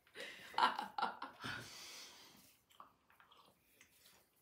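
Breathy laughter in the first second and a half, with faint, sticky squishing of dog-treat dough being kneaded by hand.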